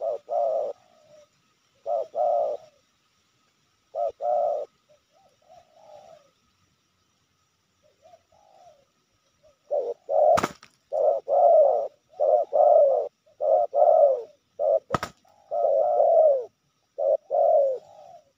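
Spotted dove (tekukur) cooing: a few paired coos in the first seconds with fainter calls between, then from about ten seconds a near-unbroken run of coos. Two sharp clicks cut through, one about ten seconds in and one about fifteen.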